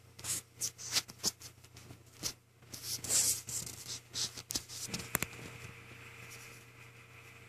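Light taps, rubs and scrapes of a hand touching a 3.5-inch WD Caviar Green hard drive and its open WD My Book enclosure, over a faint steady hum. A faint steady high whine comes in about five seconds in.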